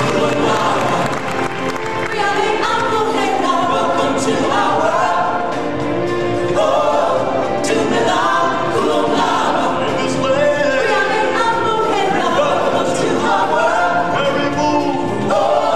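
Live group singing through a stage sound system: several voices singing a song together in harmony, steady throughout.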